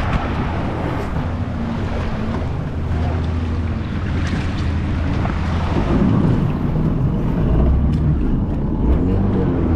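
Jet ski engine running under way, a steady low motor note over rushing wind and water. The engine pitch shifts with the throttle about six seconds in and again near the end.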